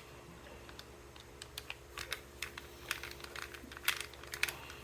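Faint, irregular clicks and taps of small carburetor parts being handled as the electric choke is taken out of a 50cc scooter carburetor, coming more often from about a second and a half in.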